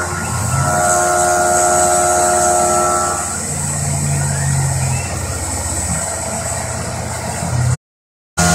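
CNC milling machine working a metal block with an end mill: a steady machine whine with a cluster of high singing tones for the first three seconds or so, then a lower hum as the tool moves over the part. The sound cuts out completely for about half a second near the end.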